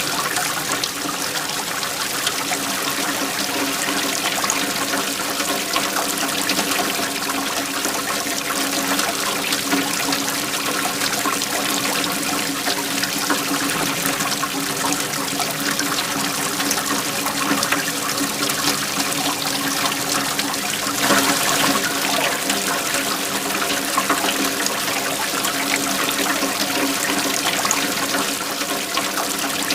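Waterfall: a steady rush of falling and splashing water, swelling briefly about two-thirds of the way through.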